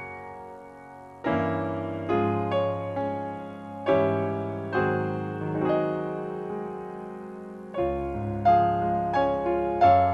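Slow solo piano music: chords and melody notes struck about once a second, each left to ring and fade.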